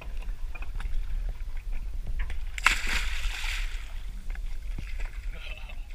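A large wolf eel dropped from the side of a boat hits the sea with one sharp splash a little under three seconds in, over a steady low rumble.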